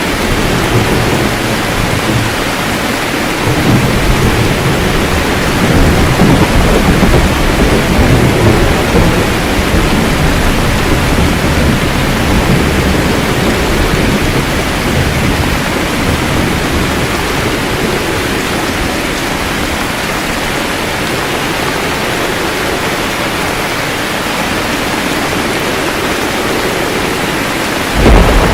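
Steady rain with rolling thunder: a long low rumble swells about four seconds in and fades over several seconds, and another low rumble begins right at the end.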